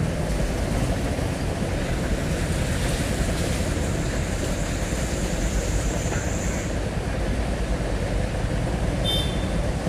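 Chopped onions and ginger-garlic paste frying in hot oil in an aluminium pot: a steady sizzle while a steel slotted spoon stirs them.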